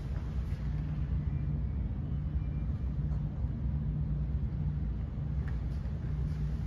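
Steady low mechanical hum and rumble with a droning tone, unchanging throughout, and a few faint ticks.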